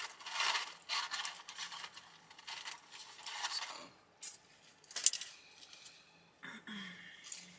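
Handling noises: rustling and light clinking of objects being moved about, with one sharp click about five seconds in.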